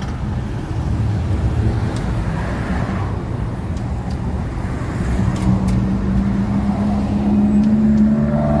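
A motor vehicle's engine running with a heavy low rumble; about halfway through a steady engine note comes in and slowly rises in pitch, as when the engine revs up.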